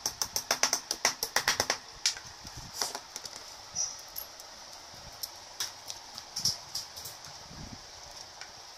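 A fast, even run of sharp clicks for about the first two seconds, then scattered light clicks and knocks as small wooden dowels and fittings are handled and pushed into the holes of a particleboard furniture panel.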